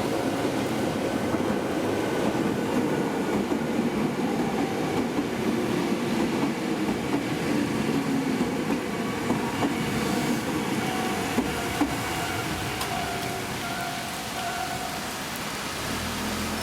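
Kobe Electric Railway (Shintetsu) Arima Line train running past over a level crossing: a steady rolling rumble of wheels on rail that eases slightly near the end.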